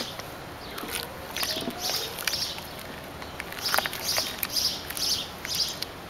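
Grain mash of crushed Pilsner malt and hot water being stirred with a long plastic spoon in a large pot, sloshing and splashing in irregular strokes, a few a second, with light clicks.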